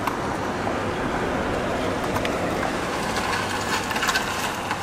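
Steady workshop background noise with faint voices, and a few light clicks as plastic wiring and connectors are handled in a car's engine bay.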